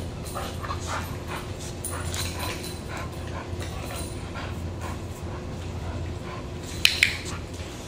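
Pit bull-type dog panting as it moves about, with a steady low hum underneath; near the end, two sharp clicks in quick succession.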